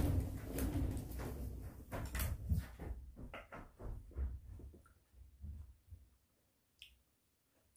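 Dull knocks and thumps of handling and movement. After about three seconds they thin out into a few light clicks of wooden chopsticks against a food container.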